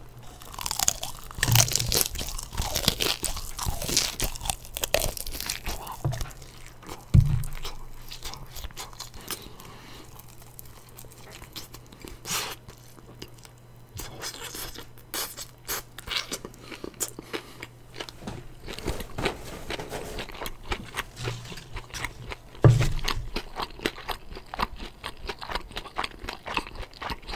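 A person biting and chewing plain fried chicken with a thin coating, close to the microphone: crisp crunches of the crust and chewing. There is a louder low thump about seven seconds in and another near the end.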